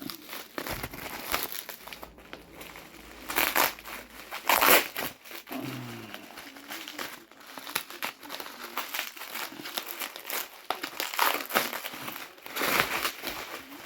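Bubble wrap being crinkled and pulled off a booster box by hand, in irregular crackling bursts, the loudest about five seconds in.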